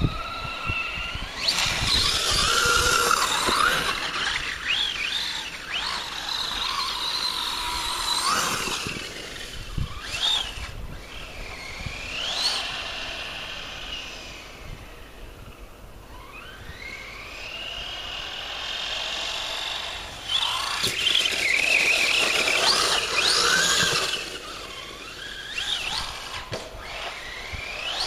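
Brushless electric motor of a radio-controlled Traxxas Stampede 4x4 truck on a 3S LiPo whining as it is throttled up and down, the pitch rising and falling with each burst of speed. It is loudest a few seconds in and again about three quarters through, with a few short thumps.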